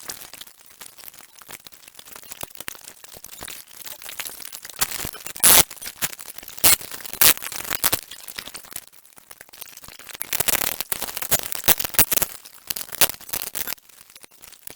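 Dry-ice-frozen, brittle sound-deadening material being cracked and chipped off a car's sheet-metal body, making irregular sharp cracks and clicks. A few louder cracks come about halfway through, and a dense spell of crackling follows near the end.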